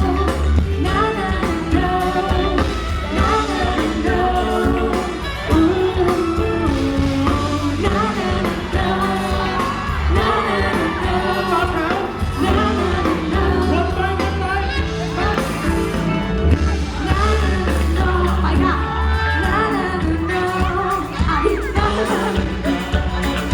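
Live performance of a Thai pop song: singing over a full backing band with a heavy, steady bass.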